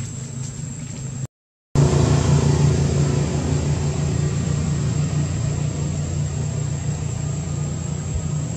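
A steady low engine drone, like a motor vehicle running nearby. It cuts out completely for about half a second just after a second in, then comes back louder and steady.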